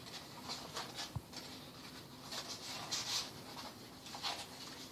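Stiff paper lamp pieces rustling and scraping in short, irregular bursts as they are bent and slotted together by hand, loudest about three seconds in, with a soft bump about a second in.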